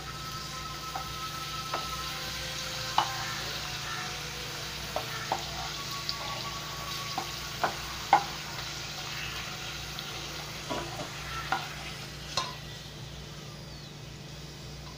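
Appalams (papads) frying in hot oil in a kadai: a steady sizzle, with a scattering of sharp clicks and taps as the slotted spatula turns them and knocks the pan. The sizzle eases a little near the end.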